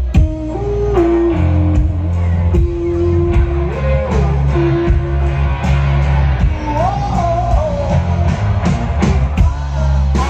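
Live rock band playing: electric guitar, bass guitar and drum kit, with a voice singing.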